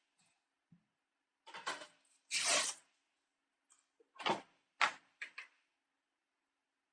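Handling of a cardboard tube of refrigerated biscuit dough: a handful of short rustling, tearing bursts, the last three close together.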